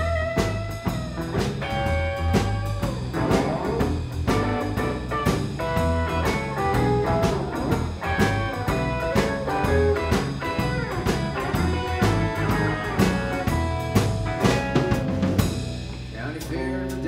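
Live band playing the instrumental intro of a country-blues song: a drum kit keeps a steady beat under acoustic and electric guitars, with low bass notes underneath.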